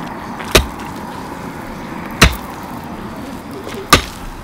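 A long-handled pick striking stony ground three times, about a second and a half apart, as a channel is dug out by hand.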